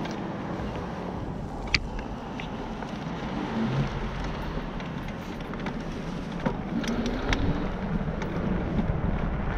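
Steady rushing wind noise on the microphone of a moving camera, with rolling noise over rough asphalt and a few sharp clicks, the clearest about two seconds in and again near seven seconds.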